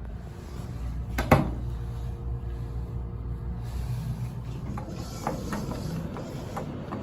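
Elevator cab's steady low hum, with one sharp clunk a little over a second in and a few lighter clicks near the end: the sounds of the car and its door equipment at work.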